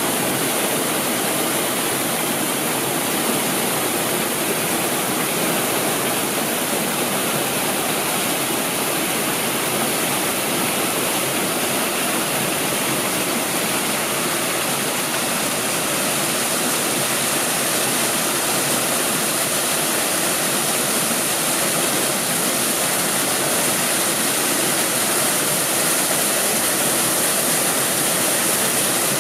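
Steady rushing of running water, an unbroken hiss that holds at one level throughout.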